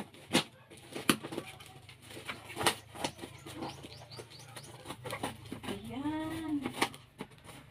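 Scissors snipping through the woven sack wrapping of a parcel: a handful of sharp, separate snips. About six seconds in, a short low call rises and falls in pitch.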